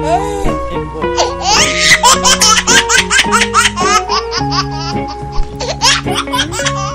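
Background music with a baby's rapid giggling laughter over it.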